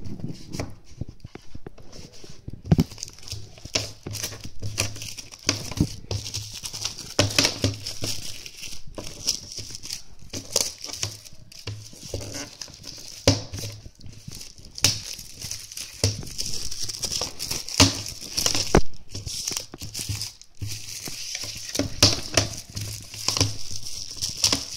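Plastic shrink-wrap crinkling and tearing as it is pulled off a DVD case, an irregular run of crackles throughout.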